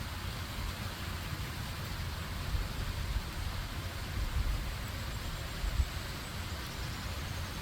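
Stream water rushing and splashing as a steady, even hiss, over a low rumble that swells and dips unevenly.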